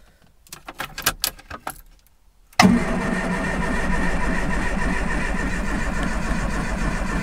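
Keys clicking in the ignition, then the Triumph Spitfire 1500's four-cylinder engine is cranked on the starter for about five seconds without catching: a hard start of the kind caused by an incorrect points gap.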